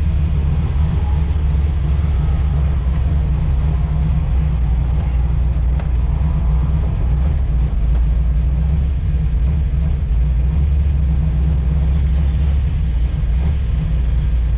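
Steady low rumble of a motor vehicle running at an even pace, with no revving.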